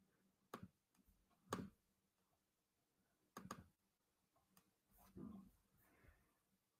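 Near silence with a few faint, short clicks spread over several seconds: computer clicks as a slide presentation is started and shared.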